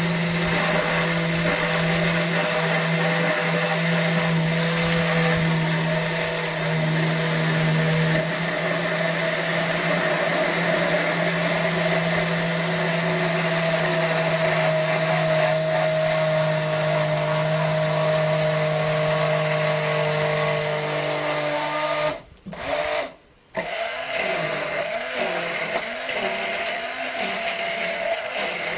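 Electric hand blender running steadily in a plastic jug, emulsifying egg and olive oil into alioli. It cuts out twice briefly about 22 seconds in, then runs on with a lower, wavering pitch.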